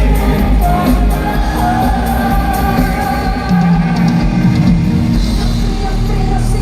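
Live pop-rock band music with drums and guitar, a sung vocal line holding long notes over it, echoing in a large hall.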